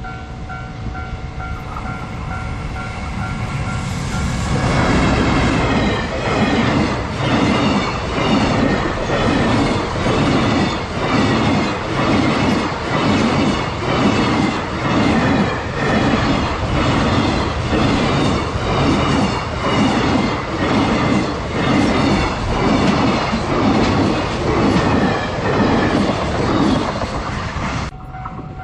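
Level crossing warning bell ringing, then, about four seconds in, a long freight train hauled by an EF210 electric locomotive runs past. Its wagons' wheels clack over the rail joints in a steady beat of about one a second until the train has passed, shortly before the end, leaving the bell ringing.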